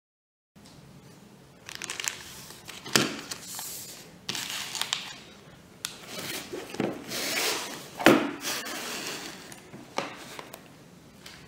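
Plastic packaging crinkling and rustling while boxed speed cubes in plastic cases are handled and set down on a table, in irregular bursts with a few sharp plastic clacks, the loudest about 8 seconds in.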